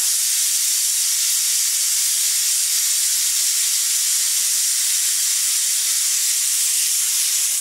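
Aluminium pressure cooker on a gas stove venting steam through its weight valve: a loud, steady, high hiss as built-up pressure is released.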